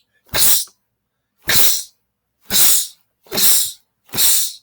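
A man's short, sharp, hissing exhalations, five in a row, about one a second.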